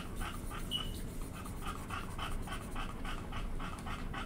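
An animal panting quickly and steadily, about four breaths a second, with one brief high squeak under a second in.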